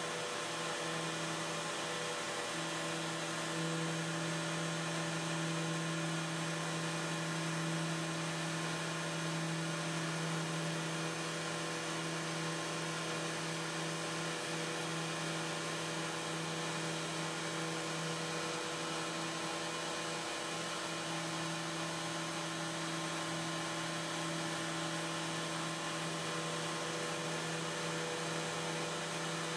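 CNC router spindle running steadily as its thin bit mills a carbon fiber sheet: a constant hum with a few steady tones over an even hiss.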